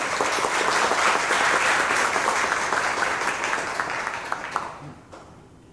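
Audience applauding: a dense round of clapping that tapers off about five seconds in, with a last few scattered claps.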